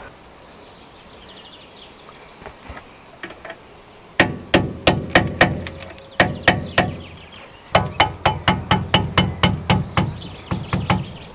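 Hammer blows on a flat screwdriver held as a drift against a car's rear brake caliper. A run of sharp blows starts about four seconds in, pauses briefly, then a faster run of about fifteen taps follows at roughly five a second.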